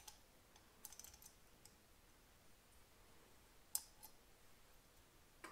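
Faint, sharp metallic clicks of rocker parts being fitted into a Honda CL125 aluminium cylinder head. There are scattered single clicks, a small cluster about a second in, and the loudest single click about three-quarters of the way through.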